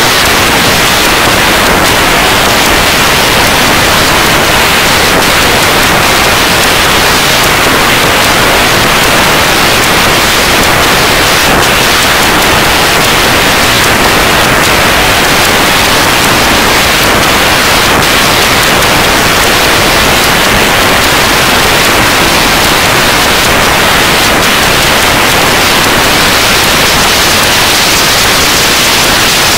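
Loud, steady static hiss like white noise, evenly spread from low to very high pitches, with no other sound heard through it.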